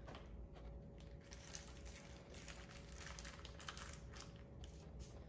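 Faint crinkling of soft plastic bags being squeezed and light clicks of plastic chocolate moulds and spoons being handled, over a faint steady tone.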